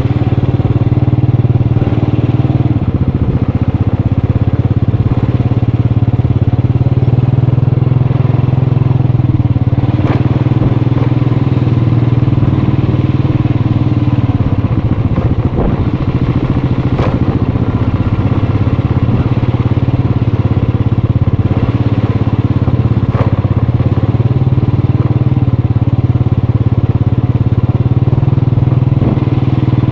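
Motorcycle engine running at a nearly steady pitch while riding, with a short knock now and then.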